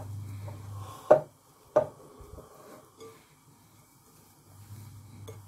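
Hands mixing shredded kunafa dough soaked in melted ghee in a glass bowl: soft rustling with two sharp knocks against the bowl about a second and just under two seconds in, and a fainter one near the end. A low steady hum sits underneath.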